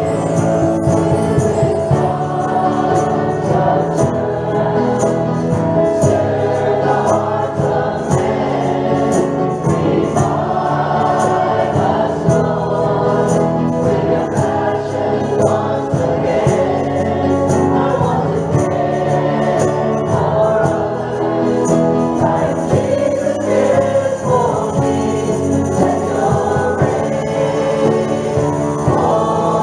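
Church choir singing a contemporary worship song in parts, with instrumental accompaniment. A light percussion tick keeps a beat about twice a second, then drops out about two-thirds of the way through.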